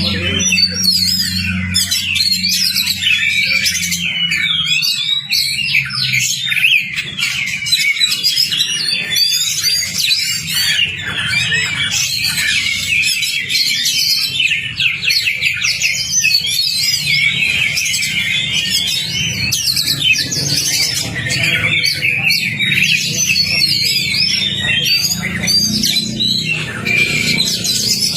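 Oriental magpie-robin (kacer) singing nonstop: a dense, fast stream of varied whistles and chattering notes, over a steady low hum.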